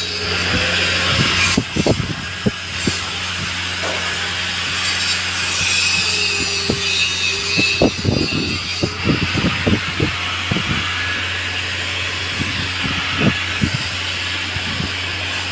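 Metal fabrication work: a steady electrical hum under a hiss, with irregular knocks and taps scattered throughout.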